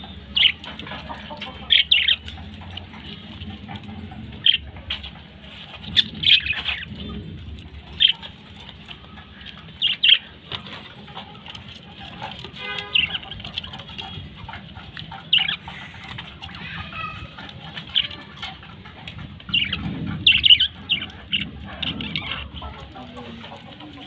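Small caged parrots, budgerigars and a cockatiel, giving short, sharp chirping calls at irregular intervals, several in quick succession at times.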